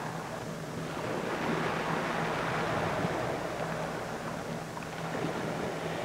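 Steady rushing background noise with a faint low hum that comes and goes.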